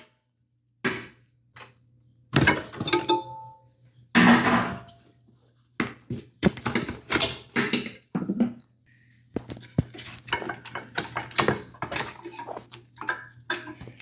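Metal tools and mower parts clanking and clinking in irregular knocks, one of them briefly ringing, as hands work on a Toro lawn mower.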